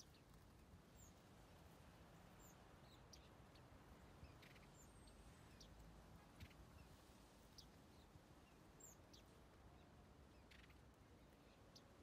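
Faint, scattered short chirps and calls of small aviary finches, a few per second, over a low steady background hiss.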